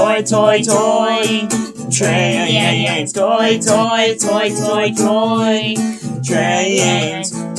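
Music: a voice singing over a strummed guitar.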